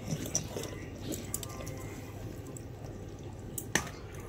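Small dog licking at a blanket or its paw: soft, wet mouth sounds and small clicks, with one sharper click a little before the end.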